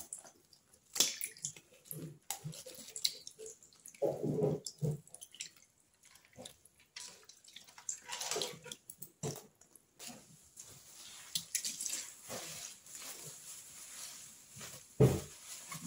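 Wet squelching, dripping and splashing as toilet cleaner and pine toilet blocks are worked in water, coming in irregular bursts with small clicks between them. A sharp thump comes about fifteen seconds in.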